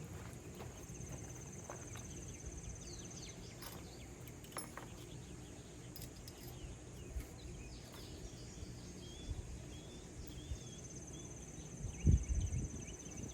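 Outdoor ambience: a high, rapid trill sounds twice, each for a couple of seconds, with a few short bird chirps in between. Scattered light clinks and a thump near the end come from handling the metal parts of a kayak rack being assembled.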